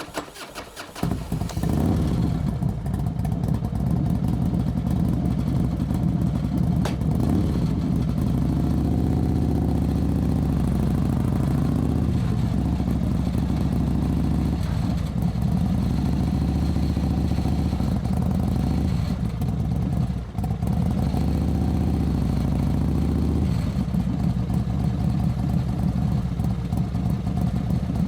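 Motorcycle engine starting about a second in with clicking cranking, then running low and steady, with a short drop in revs about two-thirds of the way through.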